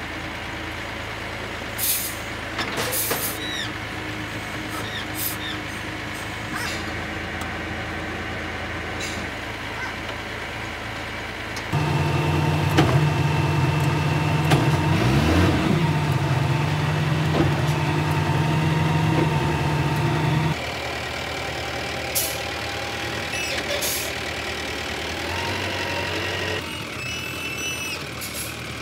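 Diesel engine of a small wheel loader running, with a few sharp metal knocks in the first few seconds. From about twelve seconds in the engine is louder, with a pitch that sweeps up and back, until about twenty seconds, when it drops back. Brief high squeals come near the end.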